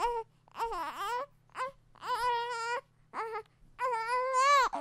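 A baby crying: a string of about six short, pitched wails that rise and fall, with brief catches of breath between them.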